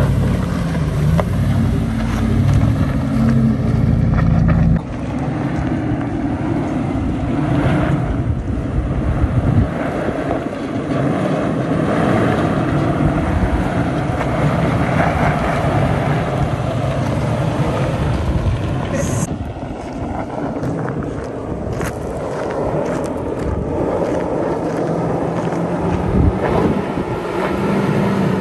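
A pickup's engine runs steadily at low speed close by for about the first five seconds. It cuts abruptly to a Toyota Land Cruiser's V8 working at low speed over dirt mounds, with wind on the microphone and a couple of sharp clicks near the end.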